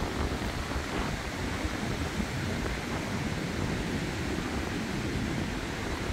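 Wind blowing on the microphone as a choppy low rumble, over the steady wash of rough surf breaking on the beach.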